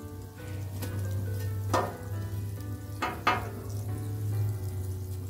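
French toast sandwiches frying on a flat-top griddle with a steady sizzle, and a metal spatula clacking against the griddle three times, about two and three seconds in. Light instrumental music plays underneath.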